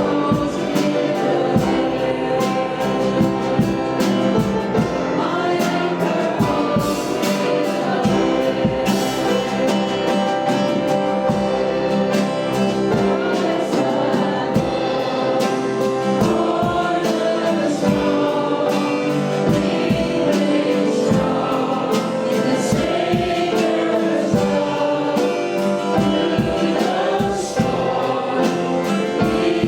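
Gospel worship music: a group of voices singing together over instrumental accompaniment with a steady percussive beat.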